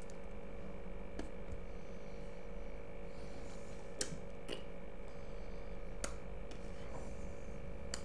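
Steady electrical hum and hiss of room and microphone noise, with a faint high whine and a few short sharp clicks, the loudest about four and six seconds in.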